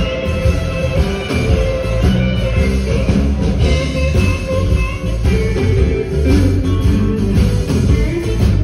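Live band music: guitars playing over a low bass line that moves from note to note.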